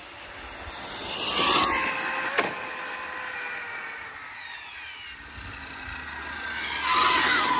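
Arrma Infraction V2 RC car's electric motor whining as the car speeds past at 50% throttle, loudest about a second and a half in and again near the end, the whine dropping in pitch as it pulls away. A sharp click comes just after the first pass.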